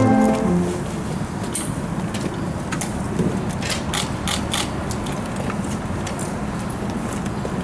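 Steady outdoor background hiss with scattered sharp clicks and taps at an irregular pace, most of them between about one and five seconds in; the end of a piece of music fades out at the very start.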